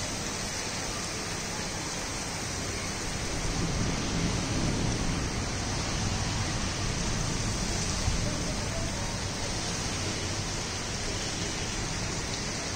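Heavy rain falling with a steady hiss, swelling a little about four seconds in.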